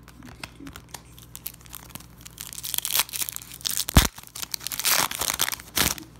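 Wrapper of a Wacky Packages sticker pack being torn open and crinkled by hand, after a few light handling clicks; the crinkling gets loud over the second half, with a sharp thump about four seconds in.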